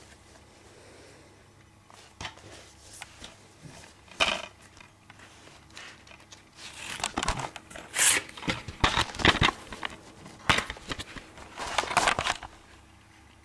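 A plastic DVD case being handled and turned over: irregular crinkling, rustling and sharp clicks, with one burst about four seconds in and a busier stretch in the second half.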